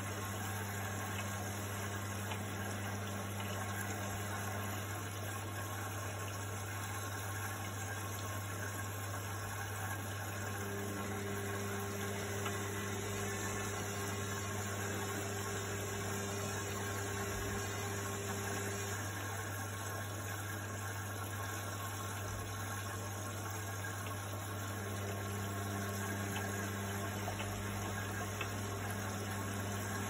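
Indesit front-loading washing machine running: a steady low hum under an even rushing noise. A higher hum drops out about five seconds in and comes back about halfway through, joined for a while by a still higher tone.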